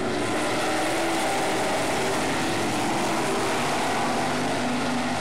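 Several winged sprint car engines running together as the pack laps a dirt oval track, their pitches wavering up and down slightly.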